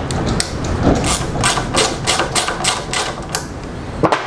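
A run of ratcheting clicks, about four a second, as a driver turns the jet holder into a Mikuni motorcycle carburettor body, ending in one sharper click near the end.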